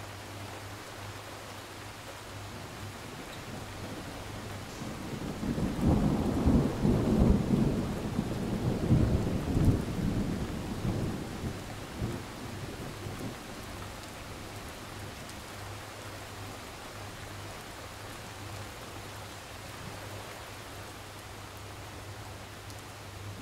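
Steady rain with a long roll of thunder that builds about five seconds in, rumbles loudest through the middle and dies away by about thirteen seconds.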